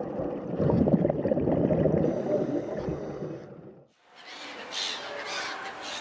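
A loud, low rushing noise for about four seconds stops abruptly. After that come repeated harsh, high calls of seagulls.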